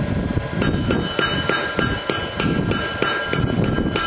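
Hand hammer striking hot steel chisel stock on an anvil: a quick, steady run of ringing blows, about three or four a second, starting about half a second in, as the chisel is drawn out and shaped.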